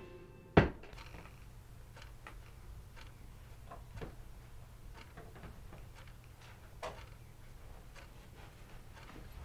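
Quiet room with a low steady hum and a clock ticking faintly about once a second. A single sharp click, the loudest sound, comes about half a second in.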